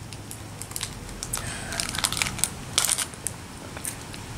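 Plastic candy wrappers being handled, giving an irregular run of crinkles and sharp crackles.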